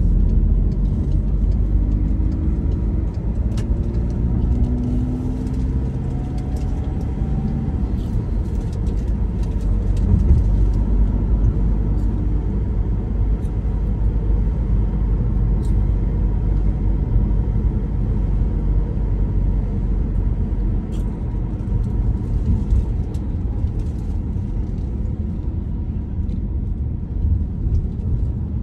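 Car driving: a steady low engine and road rumble, with the engine's pitch climbing a couple of seconds in.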